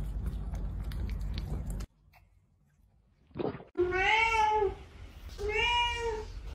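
Domestic cat meowing at a closed door: two long meows, each rising and then falling in pitch, the first a little over halfway in. Before them, a low rumbling noise with faint clicks cuts off about two seconds in.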